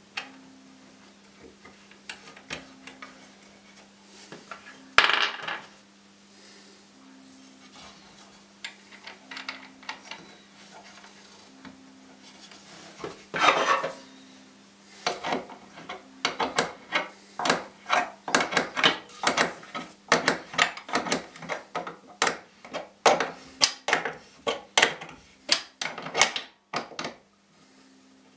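A belt sander and its wooden stand being handled: clunks and scrapes of the sander's body against the wood as it is fitted in, then, from about halfway, a long run of quick knocks and scrapes, two or three a second. The sander's motor is not running.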